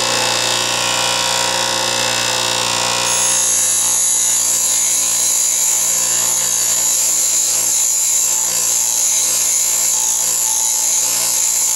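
Bench grinder running steadily. About three seconds in, a soft steel bar is pressed to the coarse wheel and ground freehand, adding a high grinding hiss that lasts until the end.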